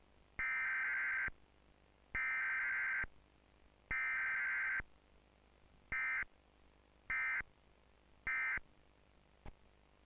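Emergency Alert System SAME data bursts: three warbling two-tone digital bursts of about a second each, then three short bursts. These are the header sent three times and the end-of-message code sent three times, the pattern of a Required Weekly Test with no attention tone or voice message. A faint click comes near the end.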